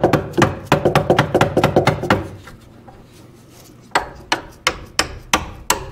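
Mallet blows on a rusted Caterpillar D4 steering clutch linkage, knocking a frozen part loose. It opens with a quick run of metallic knocks that ring, pauses, then goes on as steady blows about three a second.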